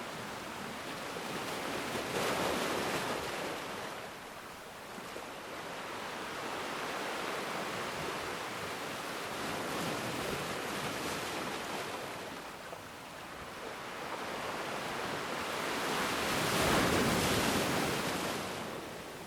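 Ocean waves breaking and washing on a shore, the surf rising and falling in slow swells, with the loudest wave crashing near the end.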